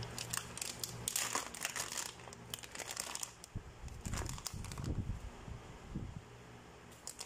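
Plastic curry-powder packet crinkling as it is handled. The crackles come in irregular bursts, densest in the first half, then thin out to a few soft knocks.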